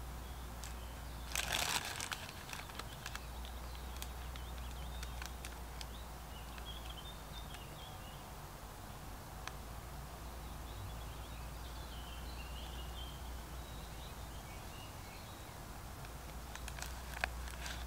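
Quiet woodland ambience with faint birdsong over a steady low hum, a brief rustling crunch about a second and a half in and a few scattered clicks near the end.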